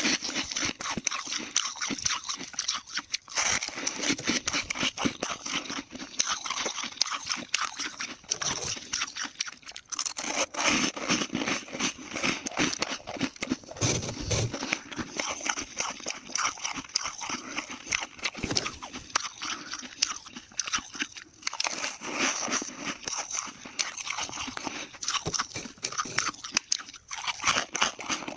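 Soft, dry freezer frost being bitten and chewed close to the microphone: dense, crisp crunching with short pauses every few seconds between bites.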